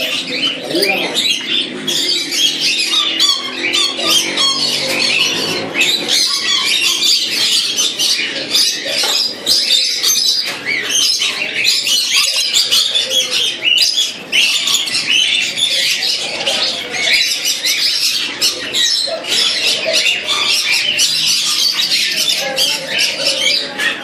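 A crowd of caged parrots squawking and screeching together in a continuous, shrill chorus of overlapping calls.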